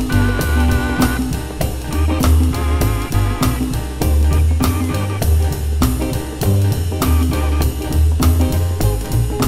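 Minor blues backing band with drum kit, bass and guitar, with a lead instrument playing short blues phrases with vibrato that drop out between them, in call-and-response style.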